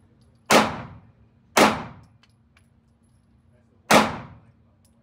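Three 9mm pistol shots from a Glock 43X fired in an indoor shooting range, each followed by a short echo off the range walls. The second shot comes about a second after the first, and the third about two seconds after that.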